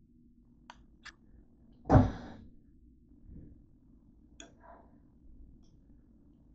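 A dull thump about two seconds in, then a few light clicks and scrapes of a metal fork against a ceramic bowl as shredded pork is stirred.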